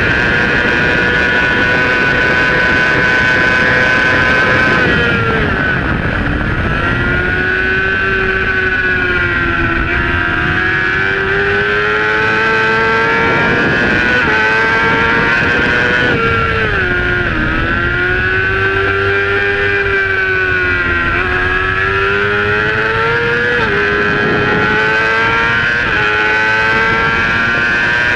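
Honda supersport motorcycle's inline-four engine on a race track: held at high revs for about five seconds, then the pitch drops sharply as it slows, and it revs up and down through the corners, with a quick step and a climb near the end as it accelerates again.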